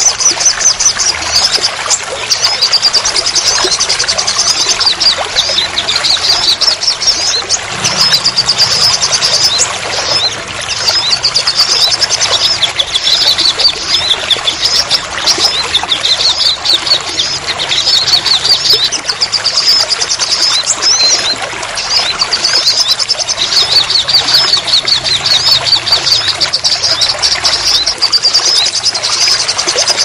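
Steady rain and running water with a crowd of small birds chirping and trilling without pause in quick, high notes.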